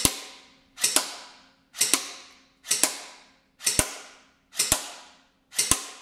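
Cyma CM.121 airsoft electric pistol firing single shots in semi-automatic mode, a steady rhythm of about one shot a second, seven in all. Each shot is a quick double crack followed by a short fading echo.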